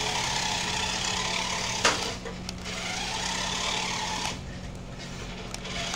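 Small electric motor of a toy RC car running as it drives across a tile floor, with tyre noise. There is a sharp click a little under two seconds in, and the motor eases off a little past four seconds.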